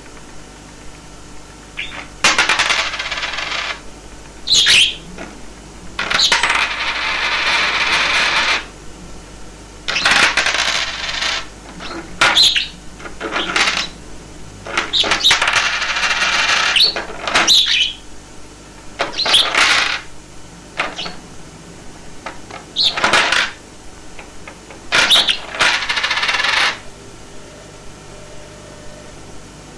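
Coins clattering and sliding across a hard tabletop as a pet budgerigar picks them off a stack with its beak and tosses them. There are about a dozen bursts, each up to a couple of seconds long, with sharp single clinks in between.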